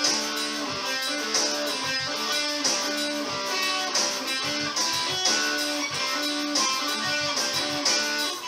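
Electric guitar playing a repeating funky riff, its phrase coming round about every 1.3 seconds.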